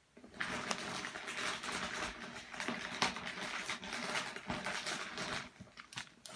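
Plastic packaging crinkling and rustling as a packaged foam squishy is squeezed and handled. The crinkling stops about five and a half seconds in.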